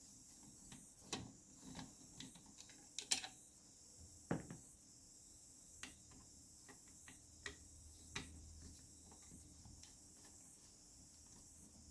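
Sparse light clicks and knocks of small plastic and metal projector parts being handled and taken apart, about a dozen over the stretch, the loudest about three and four seconds in.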